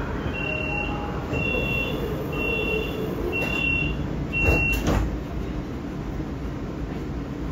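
Five short high electronic beeps, about one a second, from a subway train cab's alert beeper, over the steady low rumble of the moving train. Two sharp knocks come just after the last beep and are the loudest sounds.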